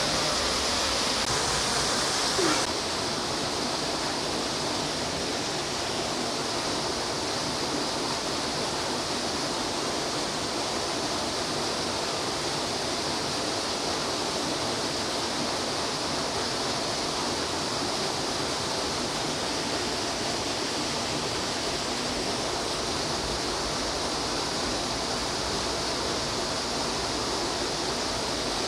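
Steady, even rushing noise like running water or a constant hiss, unchanging in level, with its tone shifting slightly at a cut about two and a half seconds in.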